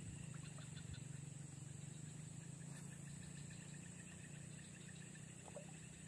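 Faint swamp ambience: a steady high-pitched insect drone over a low steady hum.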